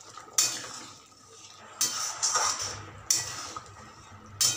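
Long steel spatula stirring besan pieces through thick gravy in a steel kadhai, in four scraping strokes about a second and a half apart.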